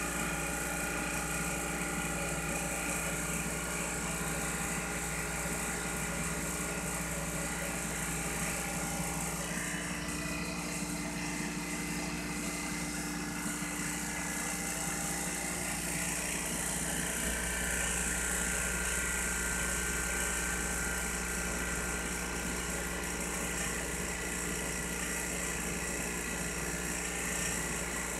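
Blueline Orion 100 vacuum pump and its electric drive motor running steadily, a continuous machine hum made of many steady tones with a hiss above them. It is pulling deep vacuum, about 9×10⁻³ mbar, on a flask of transmission oil. Its tone shifts slightly about seventeen seconds in.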